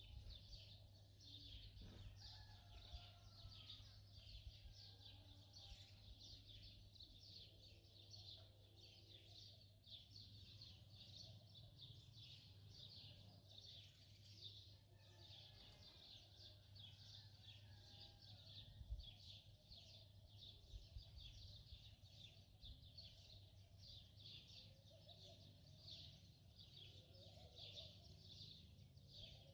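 Faint birds chirping, short high chirps repeating a couple of times a second, over a steady low hum.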